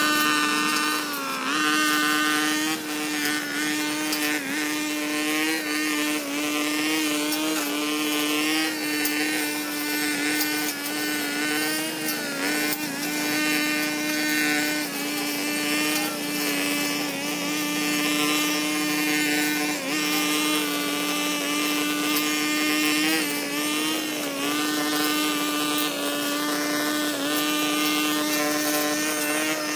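Gas brush cutter running at high throttle while trimming grass, a steady high engine note that dips briefly a few times as the cutting head takes load or the throttle is eased.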